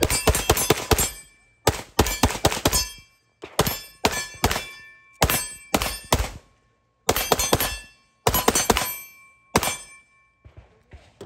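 Rapid strings of pistol shots, several sharp reports fired in quick succession in each string. There are about seven strings, separated by brief pauses.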